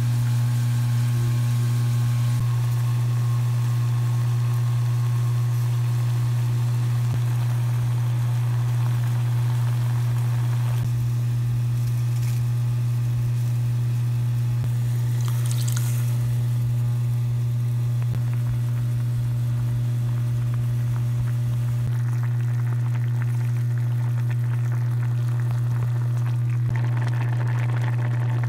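A steady low hum throughout, with water pouring into a metal pot at the start.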